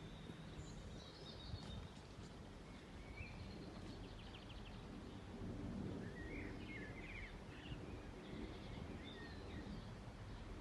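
Several songbirds chirping and trilling faintly over a steady low background rumble.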